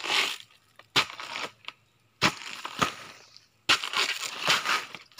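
A large knife hacks into a banana plant's fibrous pseudostem and its outer sheaths are split and torn away. There are about five sharp strikes roughly a second apart, each followed by crunching and ripping, with the longest tearing stretch near the end.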